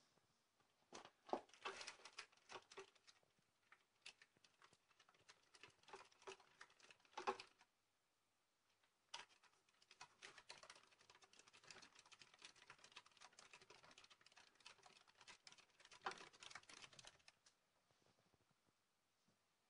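An African hedgehog running in a plastic exercise wheel: rapid, light clicking and pattering of its feet and the turning wheel. The sound pauses for about a second roughly eight seconds in and stops near the end.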